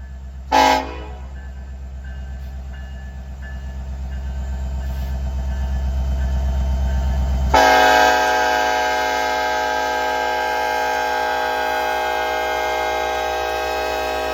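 Norfolk Southern diesel locomotive with its engine rumbling and growing louder, sounding a short horn toot about half a second in, then a long, steady horn blast from about halfway through.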